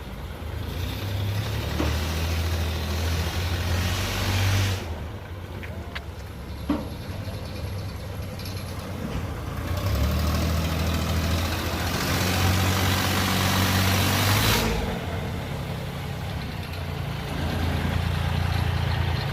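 Heavy engine running, its low hum swelling in three stretches, the first two with a loud rushing noise over them; a single sharp knock about seven seconds in.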